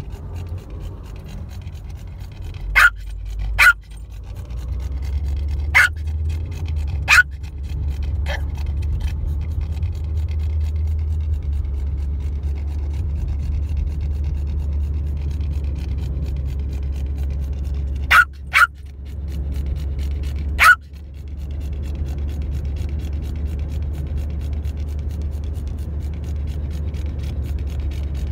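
Steady low drone of a moving car heard inside the cabin, broken by about seven brief, sharp sounds: a cluster in the first seven seconds or so, and three more about two-thirds of the way through.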